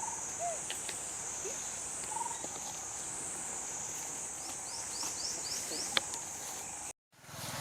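Steady high-pitched drone of insects in a tropical forest, with scattered short chirping calls, including a quick run of about six downward chirps shortly before the end. Near the end the sound cuts out abruptly for a moment.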